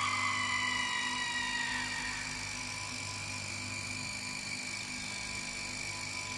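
Droning, whining intro sound with several held tones and two slow, falling whines that fade away over the first two seconds, leaving a steady hum.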